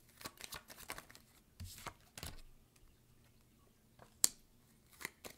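A deck of cards shuffled by hand, heard as a quick patter of soft card clicks and a brief rustle. After a short pause comes one sharp card snap about four seconds in as a card is drawn and laid down, then a few lighter clicks.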